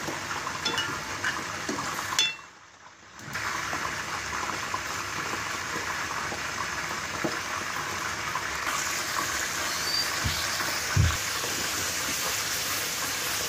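Water being stirred through hot masala in a wok with a wooden spoon: steady watery swishing and splashing, with a brief lull about two seconds in.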